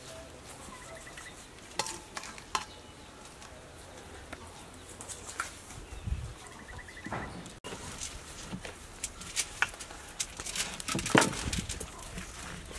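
Light clinks and scrapes of a spoon against a stainless steel bowl as a minced mixture is spooned onto a banana leaf. Near the end comes a quick run of crackling taps as the banana leaf is folded into a parcel. Faint bird chirps sound in the background.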